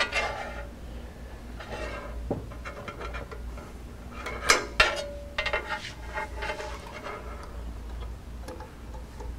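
Light metallic clicks and clinks of hands working the blade clamp of a scroll saw with its motor off and setting a small metal square on its cast-iron table. Two sharp clinks come about halfway through, and the second rings on briefly.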